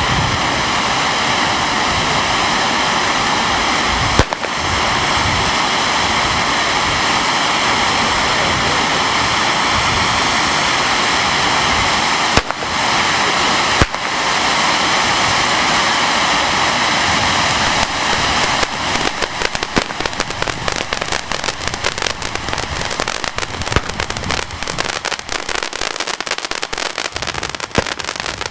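Firework fountain spraying with a loud, steady hiss for about eighteen seconds, with a couple of brief drops. It then turns into a dense crackle of many small rapid pops.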